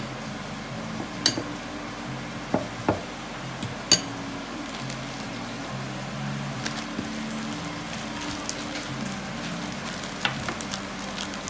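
Background music with held low notes over a steady hiss. A metal spoon clinks sharply against a ceramic bowl of egg wash four times in the first four seconds.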